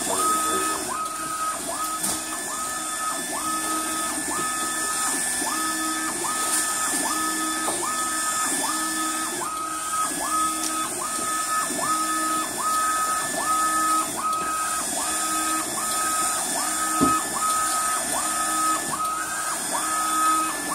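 UV LED flatbed printer printing onto a glass wine bottle on its rotary attachment. The print-carriage drive whines in repeated passes, rising to a steady high tone and stopping roughly every three-quarters of a second, over a steady high hiss.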